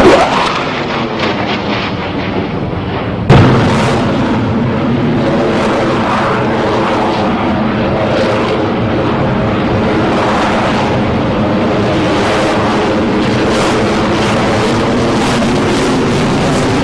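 F-22 Raptor's twin Pratt & Whitney F119 turbofan engines roaring overhead during a slow, high-angle display manoeuvre, with a crackling rumble through the roar. About three seconds in the roar jumps suddenly louder, then holds steady.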